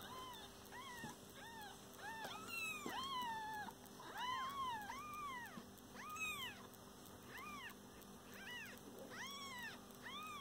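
Newborn kittens mewing over and over: short, high-pitched calls that rise and fall, about one or two a second, some overlapping.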